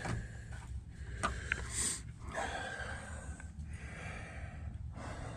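A man breathing and sniffing close to the microphone, with a couple of faint clicks about a second in.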